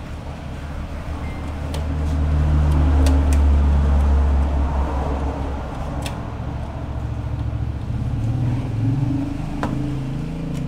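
Motor vehicle engine rumble passing on the street, swelling about two seconds in and fading, with a second rise near the end. A few sharp clicks of a screwdriver on a steel DVR case.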